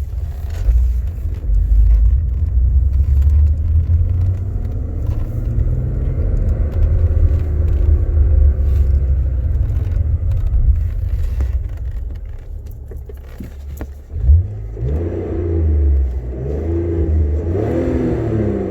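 BMW E46 330Ci's M54 straight-six and clutch, fitted with a Valeo single-mass flywheel, running with a low rumble and a note that slowly rises and falls. A sharp knock comes about fourteen seconds in, and after it a louder, wavering note sets in. The owner describes a whirling metallic noise at clutch disengagement, which he ties to the single-mass flywheel.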